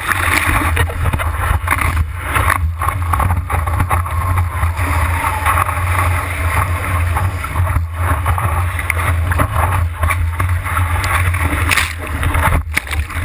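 Steady roar of big breaking ocean surf under storm wind, with heavy wind rumble on the microphone.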